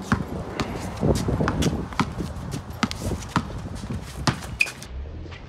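Basketball dribbled on a concrete driveway, with sneakers stepping and scuffing: a string of sharp, irregular knocks.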